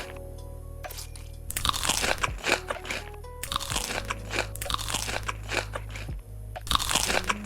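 Crisp food being bitten and chewed with loud crunching close to the microphone, in bursts of one to two seconds, over background music.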